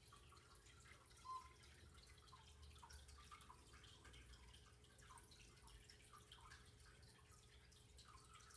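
Near silence: faint room tone with scattered soft ticks and one brief, faint high note about a second in.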